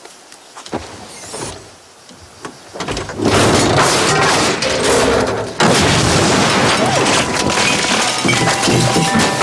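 A few thumps, then about three seconds in a sudden, loud, dense crashing din: the sound effects of a TV commercial.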